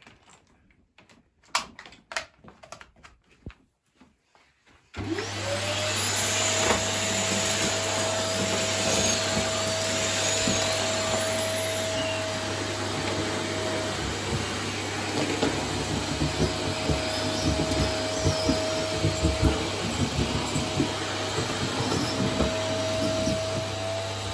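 A few clicks and knocks as plugs are pushed into a wall extension lead. About five seconds in, a Dyson Cinetic Big Ball Animal canister vacuum switches on suddenly and runs steadily with a thin whistle over the motor, crackling as it sucks sawdust and debris up from a shag rug.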